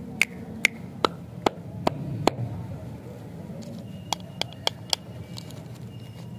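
Sharp clicks and crinkles from a plastic-wrapped toffee lollipop being handled and its wrapper pulled open: about two clicks a second at first, then after a pause four more in quick succession. A steady low hum runs underneath.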